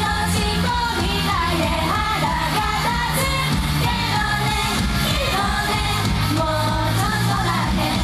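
Japanese idol pop song performed live: girls' voices singing a melody over a loud backing track with steady bass and drums.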